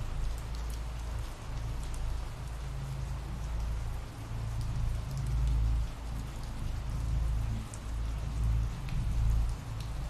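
Ambient rain sound effect: steady rainfall with a deep low rumble and faint scattered drop ticks.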